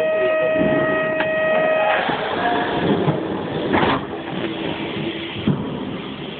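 FS electric locomotive's horn sounding one steady, single-pitched note that cuts off about two seconds in, as the locomotive creeps up to couple onto the train. Then the locomotive's running noise continues, with a knock near four seconds and a sharp knock about five and a half seconds in.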